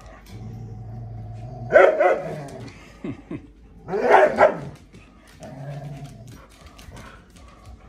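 Dogs growling in play during a tug of war over a stuffed toy, with two loud barks, one about two seconds in and one about four seconds in.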